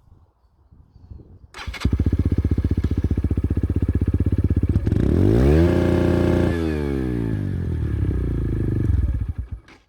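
125 cc KSR TW supermoto engine through an open Arrow exhaust with the dB-killer removed: idling with an even pulse, then revved hard about five seconds in, held briefly against the rev limiter and dropping back to idle. The sound cuts in and cuts off abruptly.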